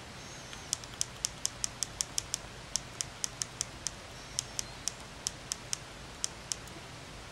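Quick series of small, sharp, high-pitched plastic clicks, about four or five a second in short runs, as the Canon PowerShot SX130 IS lens zoom assembly is handled and worked.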